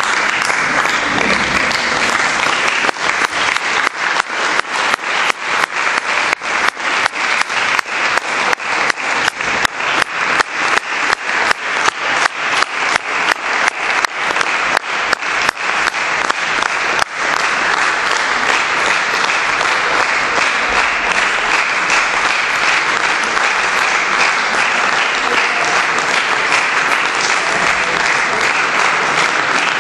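Concert audience applauding. About two seconds in, the clapping falls into unison at roughly three claps a second. Near the seventeen-second mark it breaks back into ordinary continuous applause.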